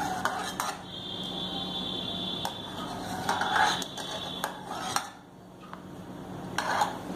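Steel ladle clinking and scraping against a steel pressure cooker as foam is skimmed off cooking dal, with several irregular clinks.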